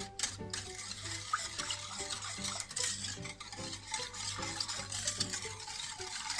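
Wire whisk stirring a thin milk-and-rice pudding mixture in a stainless steel pot: continuous irregular swishing and sloshing, with light ticks of the wires against the pot.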